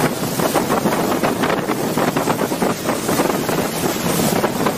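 Loud wind buffeting the microphone over the steady rush of a fast-flowing flooded river.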